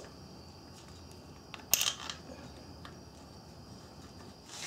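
Faint hand-handling noise on the engine, with one short metallic scrape about two seconds in as the toothed timing-belt idler pulley is pressed into place.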